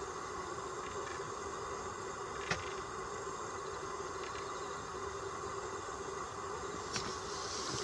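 Steady background drone with no sign of the owl calling, and a single faint click about two and a half seconds in.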